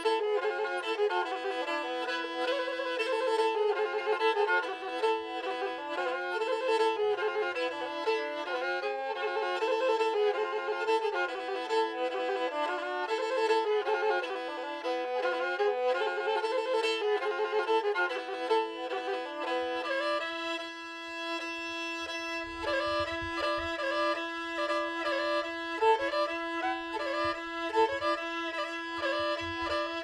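Pontic lyra music: a fast bowed folk melody over a steady held drone note, with a low beat joining about twenty seconds in.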